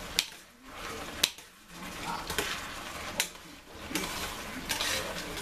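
Metal spoon stirring a thick, simmering cranberry chutney in a stainless steel saucepan, clinking sharply against the pan a few times, the clearest about a second in.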